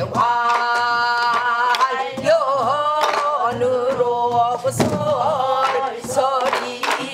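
A woman singing Korean folk song in pansori style, with long held notes that waver and bend. She accompanies herself on a buk barrel drum, one stroke every second or two.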